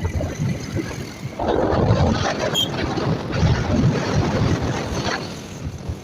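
Wind buffeting the microphone on a moving motorbike, with engine and road noise underneath.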